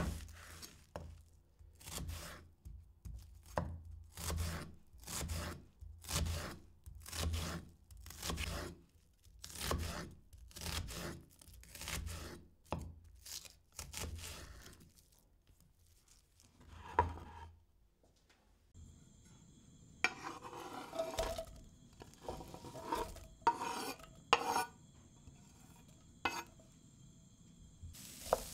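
Knife chopping vegetables on a cutting board in a steady rhythm of strokes, about one and a half a second, that stops about 16 seconds in. In the last ten seconds there are irregular knocks and scrapes of kitchenware.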